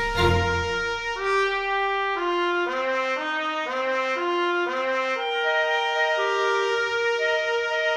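Background music: an instrumental melody of short notes stepping up and down about twice a second, easing into longer held notes after about five seconds.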